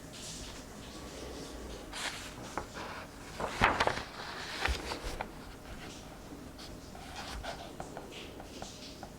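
Book pages being turned and paper rustling, with small taps and scratches; the loudest rustle comes a little before halfway.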